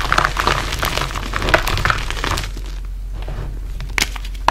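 WOD Nation gym chalk, crushed into powder and small lumps, being squeezed and crumbled in the hands: dense crunching that thins out about halfway, then a couple of sharp crackles near the end.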